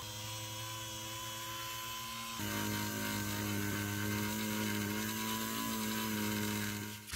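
Electric rotary tool with an abrasive cylinder running steadily against a leather bag edge, sanding off the old cracked edge coat before refinishing. It gets louder about two seconds in and ends in one sharp click.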